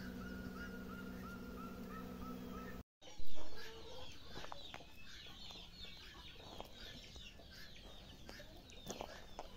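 A swarm of honeybees working a flowering tree, a steady low buzzing hum with a repeated short chirp over it. After an abrupt cut there is a sudden loud sound, then chickens clucking with many short, quick chirps.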